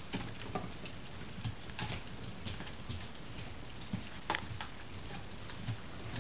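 Dogs gnawing bones: irregular clicks and crunches of teeth on bone, the loudest a little past four seconds in.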